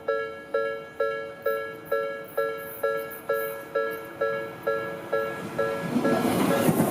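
Japanese railway level-crossing warning bell ringing, a two-tone electronic ding a little over twice a second, each strike dying away. About six seconds in, a Tobu Tojo Line train arrives at the crossing and the noise of its wheels on the rails quickly grows loud over the bell.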